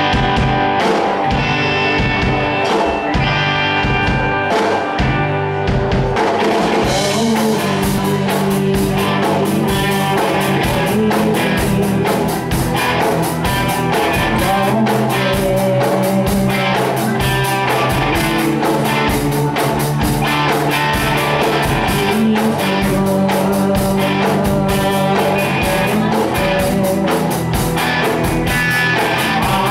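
Live rock band playing through a club PA: electric guitars, bass, keyboards and drum kit. The drums and cymbals come in fully about seven seconds in, after which the band plays at a steady full level.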